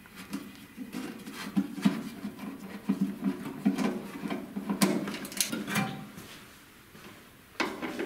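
Screwdriver backing out the sheet-metal screws of a Williams direct-vent furnace's control door: a run of small scratching clicks and metallic ticks, then a sharp knock near the end.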